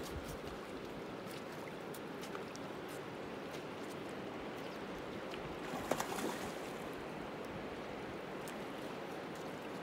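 Steady rush and lapping of river current over a cobble shore, with a brief louder noise about six seconds in.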